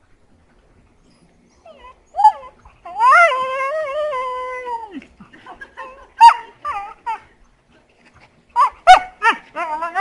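Heeler-mix dog making weird play noises: after a quiet start, a short yelp, then a long, wavering whine-howl of about two seconds that drops in pitch as it ends. Scattered short yips follow, then a quick run of yips near the end leading into another drawn-out howl.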